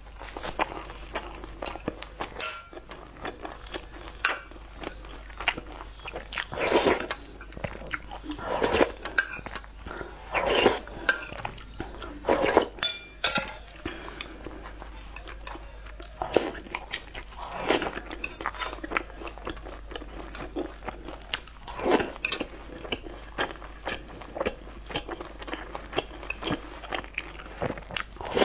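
Close-up eating sounds: a person biting and chewing battered fried food dipped in spicy tofu soup, with crunches and wet chewing at irregular intervals.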